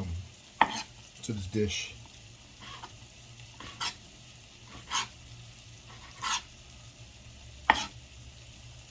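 Chicken frying in a pan with a faint steady sizzle, broken by five or six short sharp clicks of a kitchen utensil spaced about a second or more apart.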